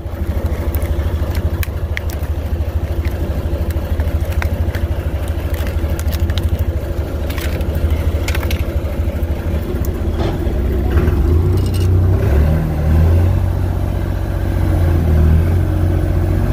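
Fishing boat's engine running steadily, getting louder over the last few seconds. Over it, crinkling and sharp clicks of a plastic lure packet being handled and opened.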